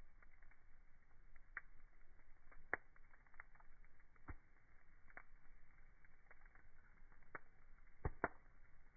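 Wood fire crackling faintly: sparse, irregular pops and snaps over a low muffled hiss.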